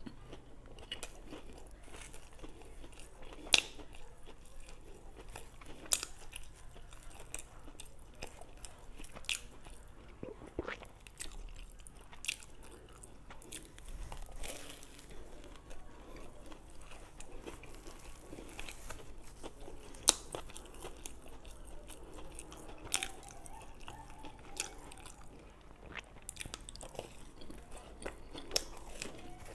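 Close-miked eating of homemade donuts: chewing and biting, with many short sharp clicks and mouth smacks. A few of them stand out louder than the rest.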